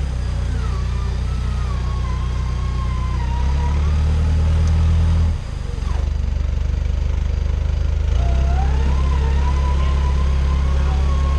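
Off-road 4x4 pickup engine running at crawling speed with a wavering mechanical whine that rises and falls with it; the engine note steps up, drops off briefly about five seconds in, then rises again near the eight-second mark.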